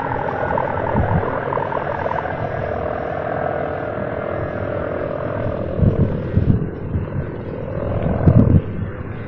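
The 4-metre sendaren (bow-shaped kite hummer) on a flying gapangan kite drones loudly with a rasping, snoring buzz, its pitch wavering as the wind varies. Two louder low rumbles come about six and eight seconds in, and the drone fades near the end.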